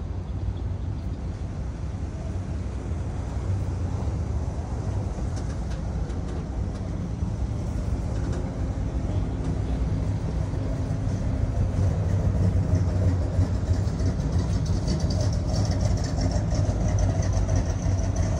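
A car engine running with a steady low rumble that grows louder over the last several seconds.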